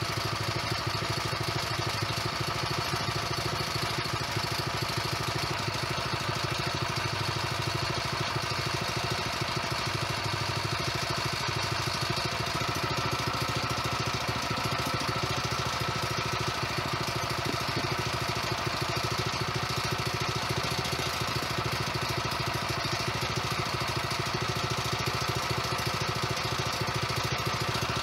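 Harbor Freight Predator 212 single-cylinder four-stroke engine running steadily, holding one speed throughout.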